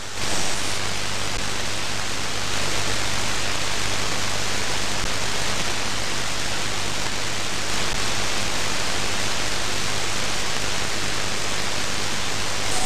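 Shortwave band noise from a FlexRadio FLEX-3000 software-defined receiver tuned between stations in the 22-metre band: a steady hiss of static with a low hum underneath.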